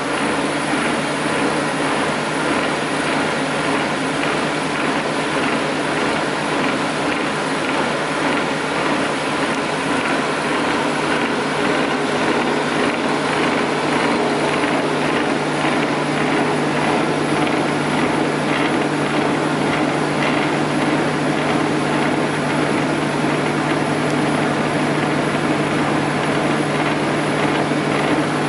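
REMA DMLA 35 circular saw running at steady speed: a constant motor hum with the whir of the spinning blade.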